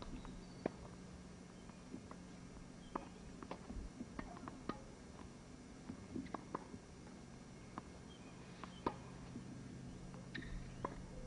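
Faint, irregular sharp pops of tennis balls struck by rackets and bouncing on a hard court, over a steady low hum.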